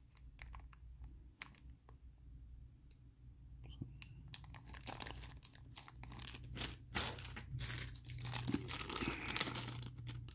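Thin clear plastic bag crinkling as fingers handle a small plastic miniature inside it: only a few faint crackles at first, then busier, louder crinkling from about halfway through.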